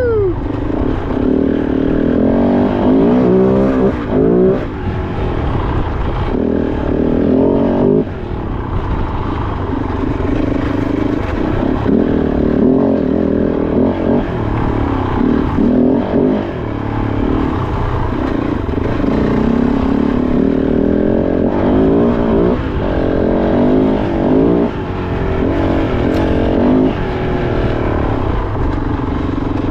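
Kove 450 Rally's single-cylinder engine under a riding load, revving up and dropping back again and again as the throttle is worked on and off.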